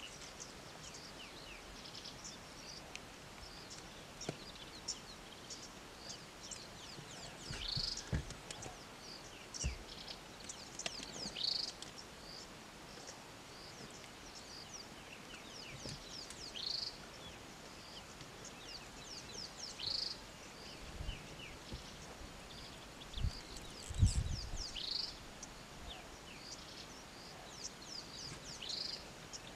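Birds chirping, with many short high calls and quick falling whistles scattered throughout, over a steady outdoor hiss. A few dull low thumps break in, the loudest toward the end.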